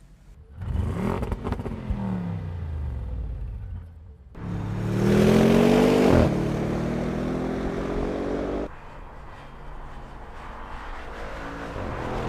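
A car engine in a few short, abruptly joined segments, running and revving, its pitch gliding up and down.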